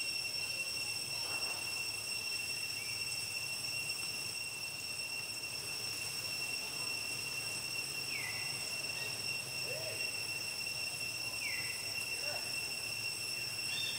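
Steady, continuous high-pitched insect drone, with a few short calls sliding down in pitch about two-thirds of the way in and near the end.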